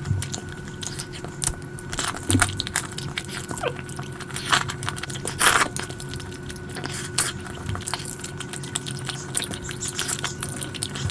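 Close-miked eating: chewing and wet mouth clicks, with scattered small clinks and jingles. A faint steady hum runs underneath.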